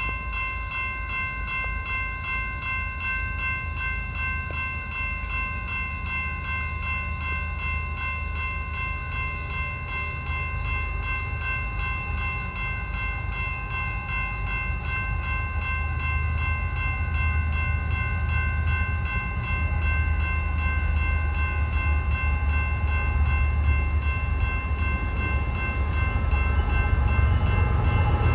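A railroad grade-crossing warning bell rings steadily over the low rumble of an approaching train, and the rumble grows slowly louder.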